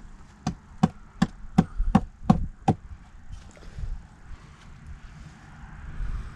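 Seven sharp knocks in quick, even succession, nearly three a second, stopping under three seconds in.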